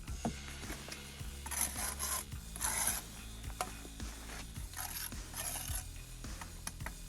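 Four short rasping scrapes of a hand tool, in two pairs, with light knocks and taps between them, over a low steady hum.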